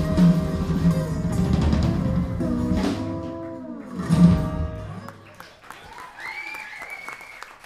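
Live band with acoustic guitars and drums playing the closing bars of a gospel song. A last accented hit comes about four seconds in and rings out, the music fades, and voices follow.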